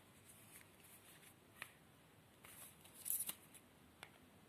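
Faint clicks and crackles from plastic packaging being handled, a few separate ticks with a brighter crinkle about three seconds in.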